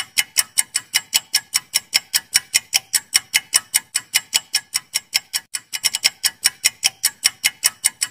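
Clock-tick sound effect for a quiz countdown timer, ticking steadily at about five ticks a second, with a brief break and a quick stutter of ticks a little past five seconds in.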